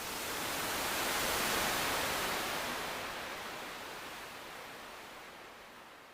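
A single ocean wave breaking and washing up the shore: the rush comes in sharply, is loudest about a second and a half in, then slowly draws back and fades.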